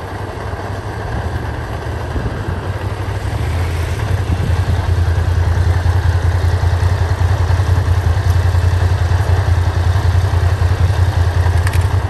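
Motorcycle engine idling close by, getting louder about three and a half seconds in, then cut off abruptly at the end as it is switched off.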